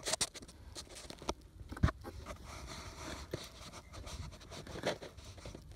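Hands working a tight transmission dipstick out of a Honda Ridgeline's engine bay: scattered clicks and scraping of plastic and metal parts, with one sharp knock a little under two seconds in.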